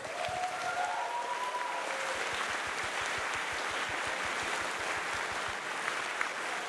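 A large audience applauding steadily, a dense even patter of many hands clapping.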